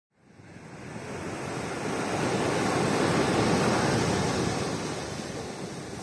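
Sea surf washing onto a sandy beach, fading in from silence: the wash swells over the first few seconds, is loudest just past the middle, then eases back.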